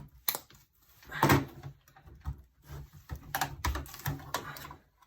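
Metal test pieces bonded with Sikaflex 252 adhesive being handled and worked apart by hand: irregular clicks and knocks, the loudest about a second in.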